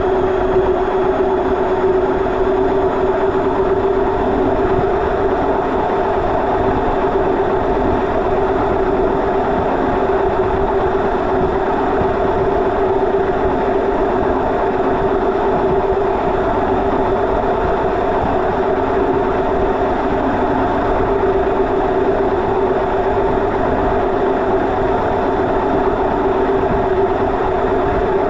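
Indesit washing machine drum spinning at a constant speed in a 1200 rpm spin cycle, heard from inside the drum: a loud, even hum with a steady whine.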